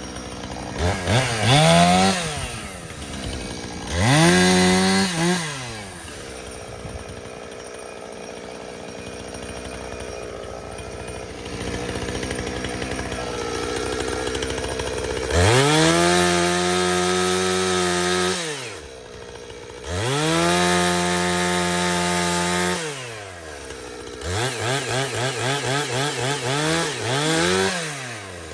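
Two-stroke chainsaw revving up and dropping back to idle repeatedly: two short revs, then two held runs at full throttle of about three seconds each, then a stretch of quick pulsing throttle blips near the end.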